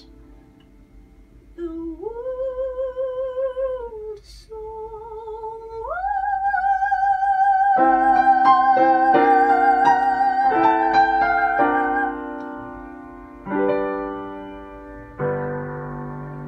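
A woman sings in operatic style with a wide vibrato: a climbing line that ends on a long high note, held for about six seconds. Piano chords accompany her, and after the voice stops the piano plays a few closing chords.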